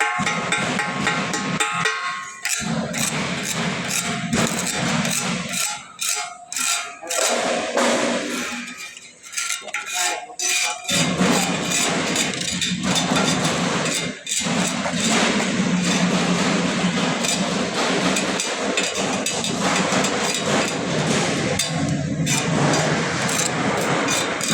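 A voice over background music, with a busy, dense mix throughout and a quieter, choppier stretch in the middle.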